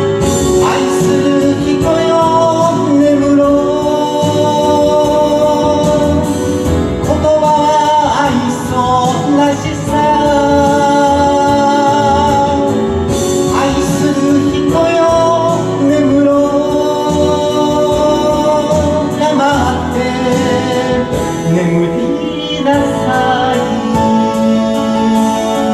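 A man singing into a microphone over instrumental accompaniment, holding long notes.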